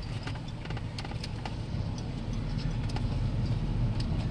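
Car moving off slowly, a steady low engine and road hum heard from inside the cabin, growing a little louder as it goes.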